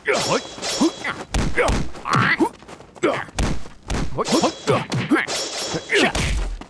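Film fight sound effects: a quick run of punch and strike impacts, several with heavy low thuds, among whooshes of swinging arms and clothing, mixed with the fighters' short grunts and shouts.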